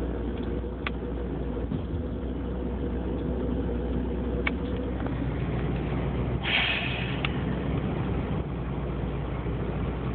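Inside the cabin of a 2005 Dodge Neon cruising at steady speed: a steady low engine and road hum. The thrumming noise the car makes at idle and when accelerating is not heard. A brief hiss about six and a half seconds in.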